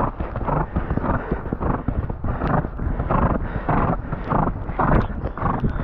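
An Irish Sports Horse cantering on wet grass: hoofbeats with a loud breath on each stride, a steady rhythm of about two strides a second.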